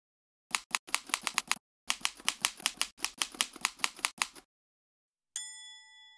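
Typewriter sound effect: rapid keystrokes clacking in two quick runs, then a single bell ding about five seconds in that rings on.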